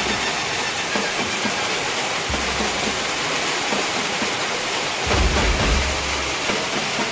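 Heavy rain pouring down steadily onto a flooded road. Low rumbles come and go underneath, the loudest about five seconds in.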